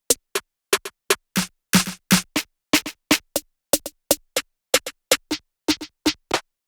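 Electronic snare drum one-shot samples auditioned one after another, about three short hits a second with a gap of silence between each, every hit a slightly different snare sound.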